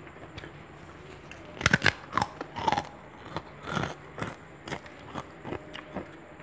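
Close-up biting and chewing of crunchy food: a run of loud crunches about a second and a half in, then softer single crunches about twice a second.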